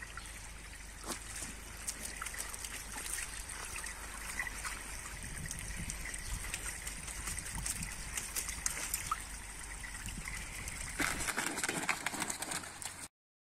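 Water trickling from a garden hose into a shallow plastic dog pool, with small splashes as Wachtelhund puppies paddle through the water. The sound changes about 11 seconds in and stops abruptly near the end.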